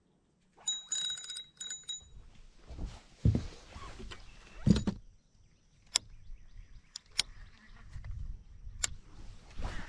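Fishing tackle being handled: a quick run of metallic clicks with a faint ringing tone, then a few dull knocks and several single sharp clicks.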